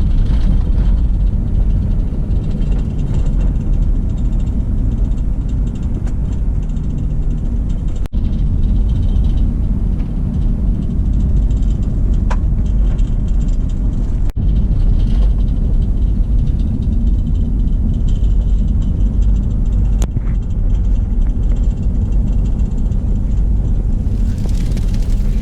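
Car driving along, a steady low rumble of road and engine noise, with two split-second dropouts.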